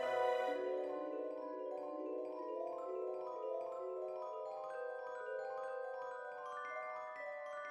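Background music: a melody of struck mallet-percussion notes, its pitch climbing step by step toward the end.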